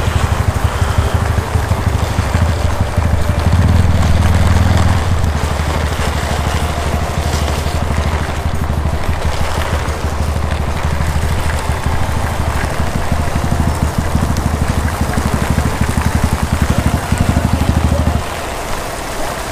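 Royal Enfield motorcycle engine idling with a steady low pulsing, under heavy rain pelting down around it. Near the end the engine sound drops out, leaving only the rain.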